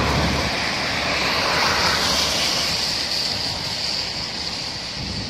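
Thunderstorm wind blowing hard: a loud, steady rushing that eases slightly toward the end.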